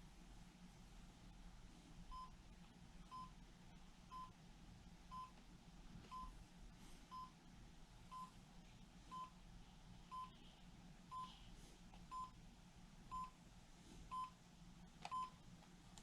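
Realtone RT205 clock radio's buzzer alarm going off: short, faint, high electronic beeps, one about every second, starting about two seconds in.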